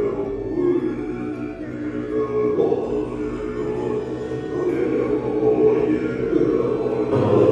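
Assembly of Tibetan Buddhist monks chanting prayers together in low-pitched unison.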